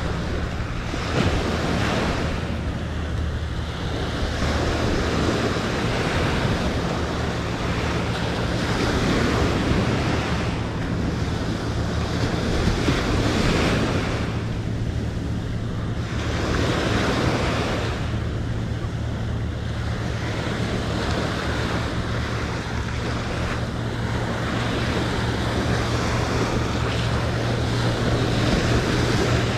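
Ocean surf breaking and washing in, swelling and fading every few seconds, with wind buffeting the microphone and a steady low hum underneath.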